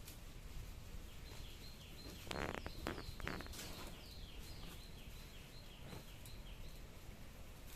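Fire burning with a low steady hiss and a cluster of sharp crackles and pops a couple of seconds in, while a run of short, high, falling chirps repeats two or three times a second through the middle.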